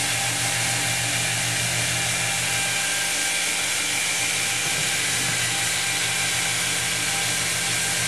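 FLEX electric stone polisher running steadily, its water-fed abrasive pad grinding across a wet stone surface to flatten it.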